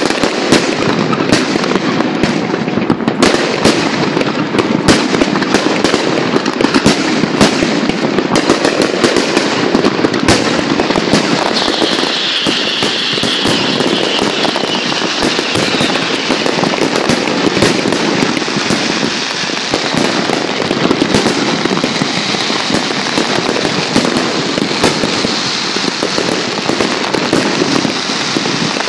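Large aerial fireworks display: a dense, continuous barrage of shell bursts and crackle, with rapid bangs thickest in the first third and a hiss rising over the crackle about halfway through.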